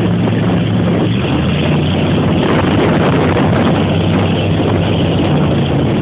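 Motorboat engine running steadily under way, with a rush of wind and water over it.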